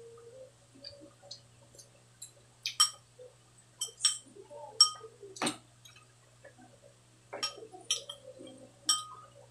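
Metal spoons clinking against glass bowls while eating: about eight sharp, separate clinks with short rings, bunched in the middle and near the end, between softer scraping and handling sounds.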